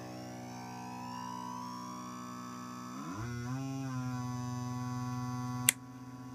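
Homemade oscillator noise-maker box playing a sustained buzzy drone with many overtones, run clean without effects; its pitches slide slowly upward as the knobs are turned, and a lower tone sweeps up about three seconds in, then holds. A sharp click near the end, after which the drone carries on softer.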